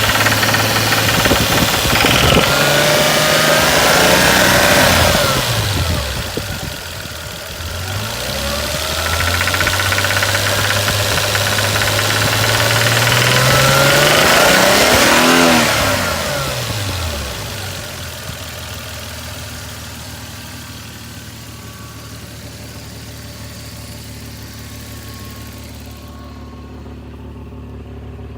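1989 Toyota Supra's 7M-GE 3.0-litre straight-six engine revved up twice, the second time more slowly and held longer, then falling back to a steady idle. It has a knocking that the owner hears around 1800–2000 rpm and suspects may come from the valves.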